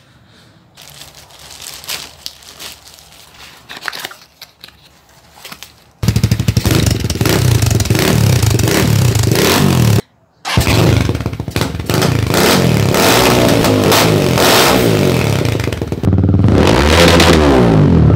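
Light clattering and scraping for about six seconds, then a Motorstar Z200 motorcycle engine revved through its exhaust, revs rising and falling over and over. The revving breaks off briefly about ten seconds in and jumps in level about sixteen seconds in.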